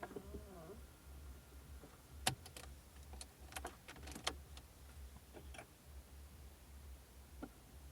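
Irregular sharp clicks and ticks from the dashboard of a 2002 Audi A4 B6 1.6 petrol, heard inside the cabin over a low steady engine hum. This is the unexplained dashboard noise the owner is trying to trace.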